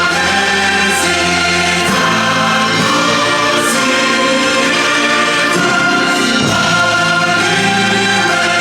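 Music: a choir singing over orchestral backing.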